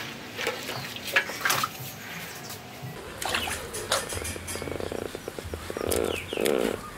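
Water splashing and dripping as a scalded crocodile is lifted out of a wok of hot water, then wet hands rubbing over its skin on a bamboo mat. Two short rasping sounds come near the end.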